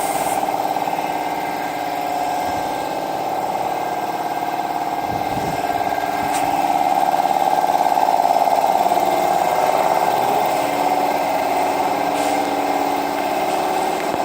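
A motor-driven machine running steadily with an even hum, a little louder in the middle.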